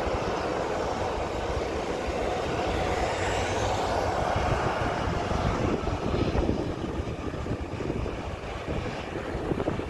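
Jet engines of a Boeing 737-800 airliner running steadily as it taxis along the runway, heard from outside the airfield fence. Wind buffets the microphone with a low rumble. The engine noise eases slightly in the last few seconds.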